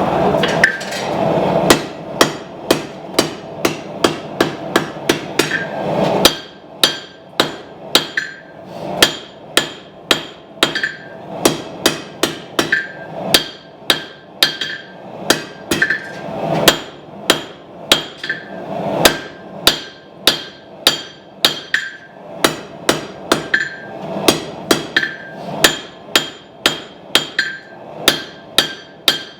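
Hand hammer forging a hot steel knife blank on an anvil: a steady run of blows about two a second, each with a bright ringing ping. A steady rushing noise sits under the blows for the first few seconds, then drops away.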